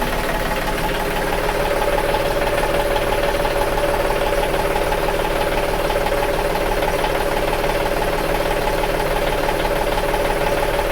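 Sailboat engine running with a constant metallic rattle and banging from a failing saildrive damper coupler. Its rubber bumpers are worn away, so the centre plate spins and bangs metal on metal against the flywheel coupling.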